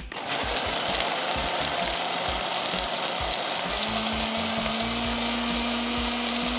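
Countertop blender switched on and running steadily, puréeing cooked rice, egg and parsley; a low steady hum comes in about four seconds in.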